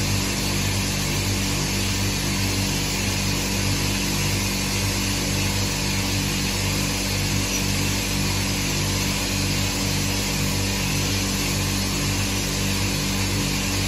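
Automatic multi-gun sandblasting machine running: a steady hiss of blasting air and grit over a low machine hum that pulses about twice a second.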